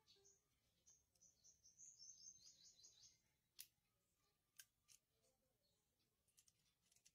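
Near silence, with a faint run of quick high chirps for about two seconds, then a few sharp light clicks as the plastic fuel pump assembly is handled.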